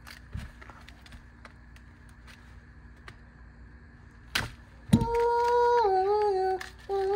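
Faint small clicks of handling, then from about five seconds in a voice humming a tune, holding notes and stepping down between them.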